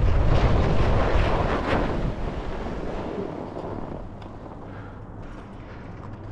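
Wind rushing over the microphone of a camera on a skier heading downhill, strongest at first and fading away about halfway through.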